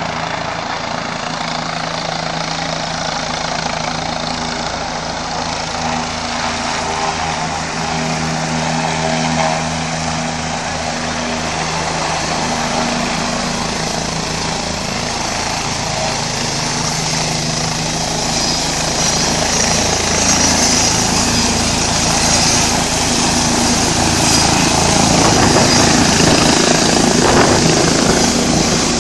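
Helicopter approaching and coming in to a low hover to land: steady turbine and rotor sound growing louder as it draws near, with rotor downwash gusting over the microphone near the end.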